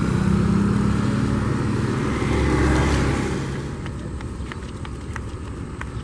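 KCIC400AF comprehensive inspection train, an electric high-speed train, rolling slowly past under its own power: a steady low rumble and hum that fades after about three and a half seconds, followed by a few light clicks.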